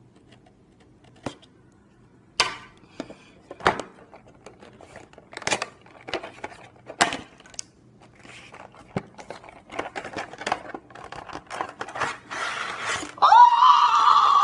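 Cardboard toy box and plastic blister tray being handled: separate sharp knocks, taps and scrapes as the box is slit open and the tray pulled out, coming faster toward the end. About thirteen seconds in, a louder sustained pitched sound with a wavering pitch sets in.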